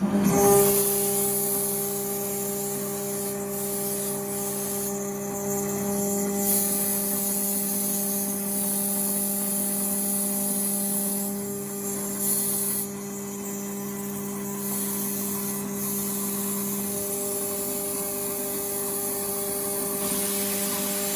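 CNC router spindle running with a steady whine while its cutter mills a metal sheet, with a steady hiss over it that thins briefly a few times.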